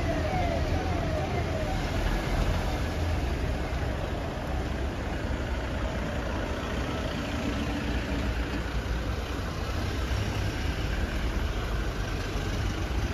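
A slow motorcade of cars, a BMW saloon and Toyota Innova MPVs, rolling past at low speed with their engines running steadily. A short, fast siren warble sounds in the first two seconds and then stops.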